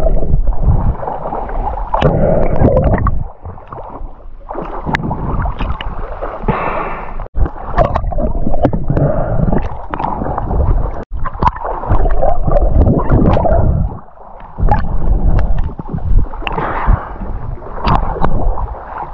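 Water sloshing and gurgling around an action camera at the sea surface as it dips in and out of the water, with frequent sharp clicks and knocks against the housing.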